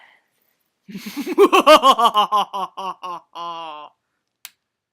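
A person's voice makes a wordless, wavering sound for about three seconds, its pitch rising and falling in quick regular waves. Near the end a ticking starts: sharp single ticks about half a second apart.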